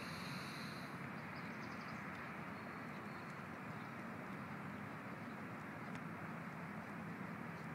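Alaskan malamute gnawing on a rabbit carcass: faint scattered crunching clicks over a steady low hiss.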